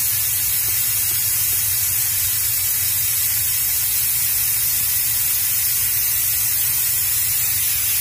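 Steady, unchanging hiss with a low rumble beneath it: constant background noise inside the semi truck's cab.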